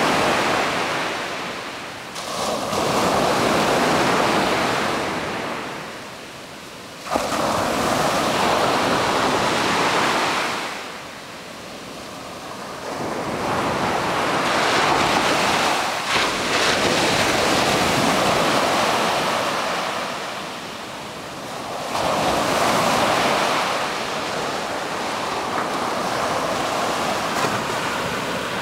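Ocean surf breaking on a beach, the rush of the waves swelling and fading every several seconds, with one wave coming in abruptly about a quarter of the way through.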